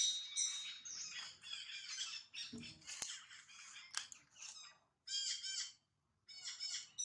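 Repeated high-pitched animal calls in short bouts, with a sharp click about three seconds in.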